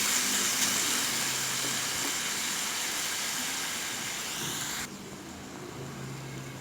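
Chopped oyster mushrooms sizzling in hot oil in a pan as they give off their water: a steady hiss that slowly fades, then cuts off abruptly about two-thirds through, leaving a fainter hiss and a low hum.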